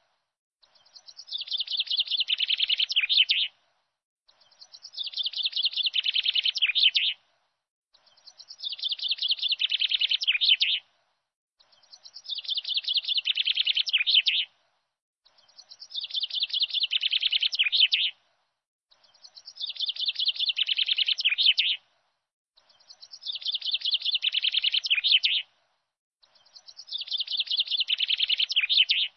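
Birdsong played on a loop: a phrase of rapid chirps lasting about three seconds swells and then cuts off abruptly. It repeats identically about every three and a half seconds with dead silence between, eight times over.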